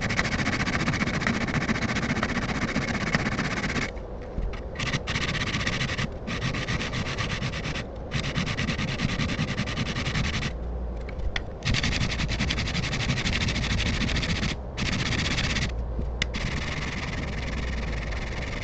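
A steel chisel blade rubbed back and forth on the coarse 200-grit face of a sharpening block, a gritty scraping in long runs broken by short pauses every few seconds. The back of the blade is being flattened and polished to take off rust.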